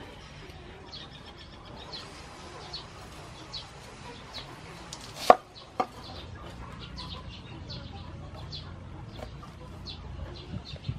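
A cleaver chopping into a pineapple on a wooden board: two sharp knocks about five seconds in, half a second apart. Birds give short high chirps about once a second throughout.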